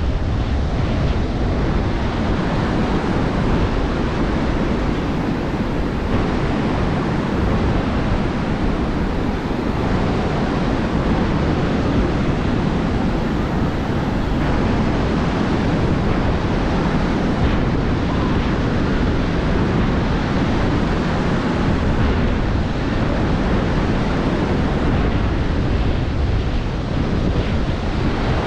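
Steady surf washing onto a sandy beach, with wind buffeting the microphone.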